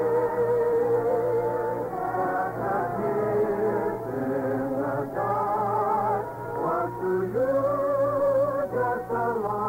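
Orchestral music with singing from a 1950 radio broadcast, a voice holding long notes with a wide wavering vibrato. The sound is muffled and narrow, with nothing above the middle range, as on an old broadcast transcription.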